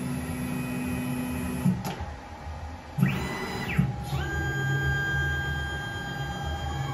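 CNC router's axis motors whining as the 4 kW spindle head moves on its gantry during an automatic tool change. The whine starts and stops with each move, with sharp clicks and a brief hissing burst about three seconds in. A steadier, higher whine runs from about four seconds until near the end.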